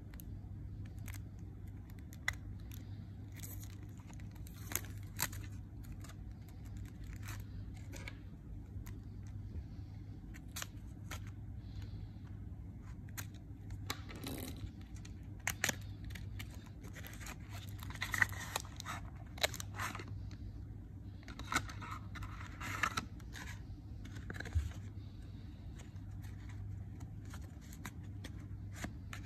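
Unwrapping and opening a Theory11 playing-card deck: cellophane and paper tearing and crinkling, with scattered sharp clicks as the card box is handled and opened. The crinkling comes in patches and is busiest in the second half. A low steady hum runs underneath.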